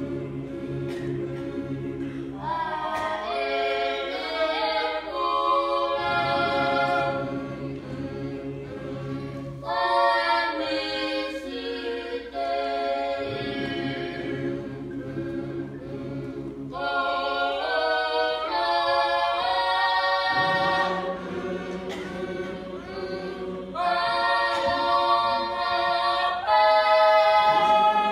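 Youth choir singing a Tongan hiva usu hymn a cappella. Several voice parts hold long notes, with low held notes under higher parts, and the phrases change every few seconds. The singing is loudest in the last phrase near the end.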